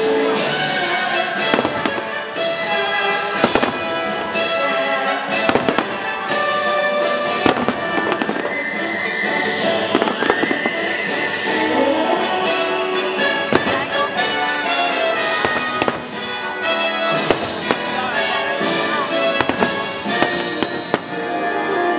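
Aerial fireworks bursting in a rapid, irregular series of sharp bangs, over loud show music that plays throughout.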